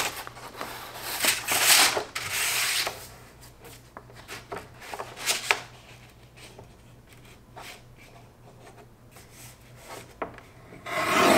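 Paper trimmer cutting sheets of drawing paper: two long scraping strokes of the blade through the paper in the first few seconds, then quieter paper handling with a few light clicks of the cutter arm.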